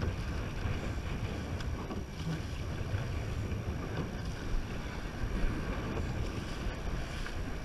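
Wind buffeting the microphone over the rush of water along a rowed surf boat's hull and oars as the crew pulls through the sea.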